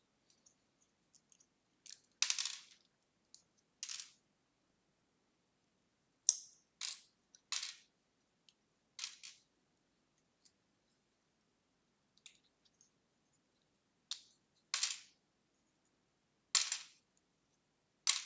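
Small plastic LEGO pieces clacking and clattering as the set is pulled apart and the parts are dropped onto a pile, about nine short, sharp clatters at irregular intervals.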